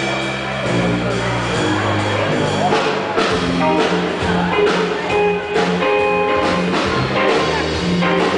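Live band playing a blues number on electric guitar, upright double bass and drum kit, with the bass holding low notes under guitar lines and a steady drum beat.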